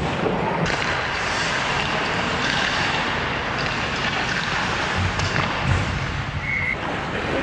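Ice hockey play heard close to the goal: skate blades scraping the ice and sticks knocking on the puck and ice, an even hiss with scattered knocks and a few dull thumps about five seconds in.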